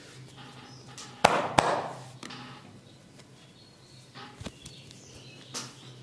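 Two sharp, loud smacks from the massage, about a third of a second apart, followed a few seconds later by a couple of faint taps.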